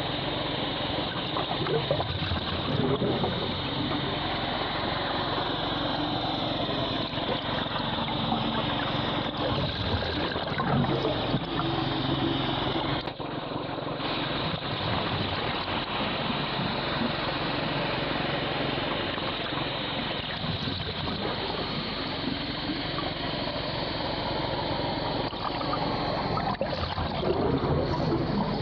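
Steady low mechanical hum with a wash of water noise, picked up by a camera in an underwater housing beneath the sea ice, with a few louder swells along the way.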